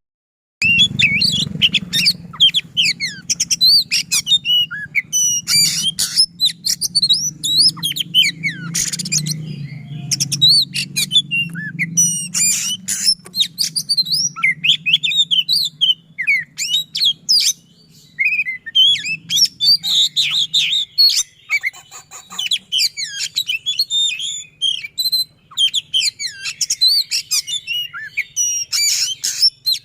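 Oriental magpie-robin (kacer) singing a fast, dense, varied song of quick whistled notes and rolling trills with sharp high accents, almost without pause.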